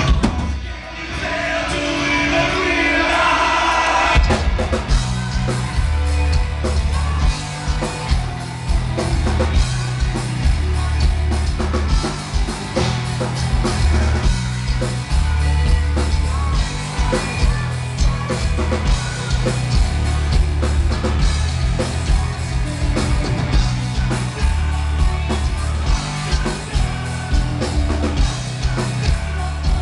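Live metal band playing loudly, with male and female vocals. The first few seconds are a thinner passage with singing; about four seconds in, the full band comes in with drums and a heavy, pounding low-end rhythm under the vocals.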